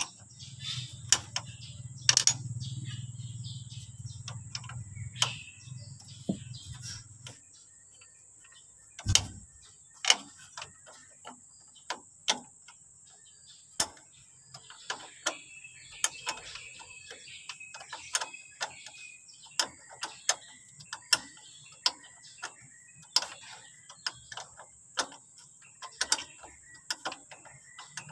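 Hand ratchet wrench clicking stroke by stroke on a bolt at a parking brake cable bracket, a sharp click every half second to second. A low hum runs under the first seven seconds or so.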